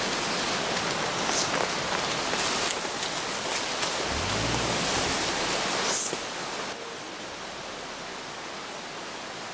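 Steady rushing of a river's flowing water, with a few brief rustles. The level drops noticeably about seven seconds in.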